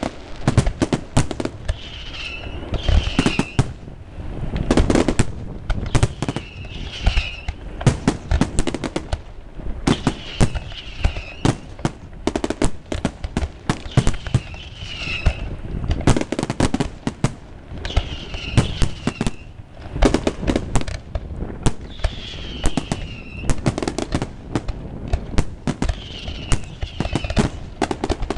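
Aerial fireworks display finale: a dense, continuous barrage of bangs and crackling shells, with a high whistle-like sound recurring about every four seconds.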